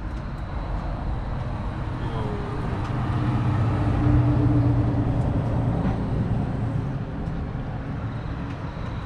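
A car engine running steadily with a low rumble, swelling louder about three seconds in and easing off again a few seconds later.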